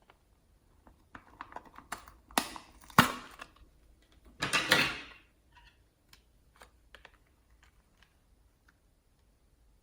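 Slime being squeezed and worked by hand: scattered small sticky clicks and pops, a sharp pop about three seconds in, and a louder squelch around four and a half seconds in.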